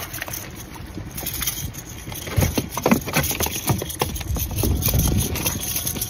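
Strong wind buffeting the microphone in gusts, with a rain jacket's fabric flapping and rustling right beside it. The gusts swell loudest about halfway through and again near the end.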